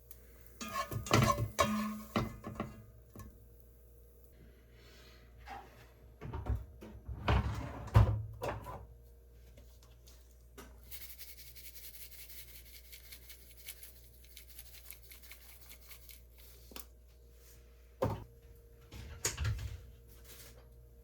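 Kitchen handling sounds: three bursts of knocks and clatter from utensils and containers being set down and moved, with a soft hiss for several seconds in the middle and a steady faint hum underneath.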